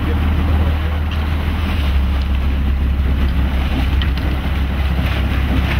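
Boat engine running with a steady low drone, with wind buffeting the microphone and the wash of water around the boat.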